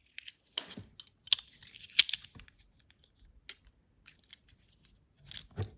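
Foil wrapper of a chocolate surprise egg crinkling and tearing in short bursts, with sharp clicks between.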